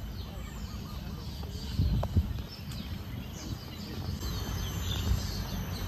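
Many birds chirping and calling in quick short notes over a low steady rumble, with a single thump about two seconds in.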